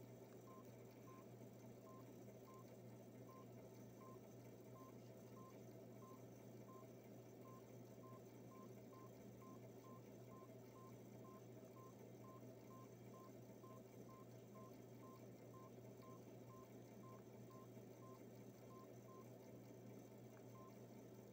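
Samsung GT-C5212i keypad beeps: short single-pitch beeps, a little under two a second, from the navigation key pressed over and over to scroll down a screen. They are faint, over a steady low hum.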